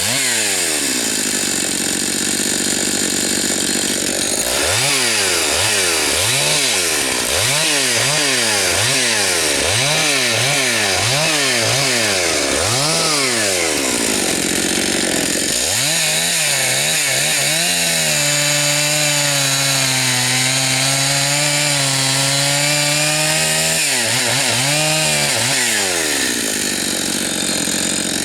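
Husqvarna 272XP two-stroke chainsaw running while it warms up. It is blipped up and down from idle about once a second for several seconds, then held at a steady part throttle, and runs at high speed near the start and the end.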